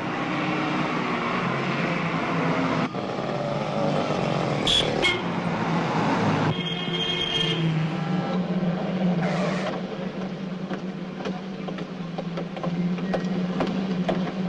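Street traffic: motor vehicles and motorbikes running and passing, over a steady low hum. The sound changes abruptly about three seconds in and again at six and a half seconds. Just after the second change a brief pitched tone sounds, like a horn.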